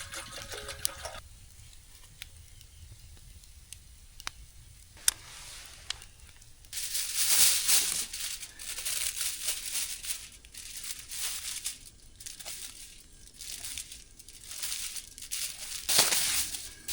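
Food wrapping being handled: a few sharp clicks, then from about halfway in, crinkling and tearing in repeated bursts, loudest soon after it starts and again near the end.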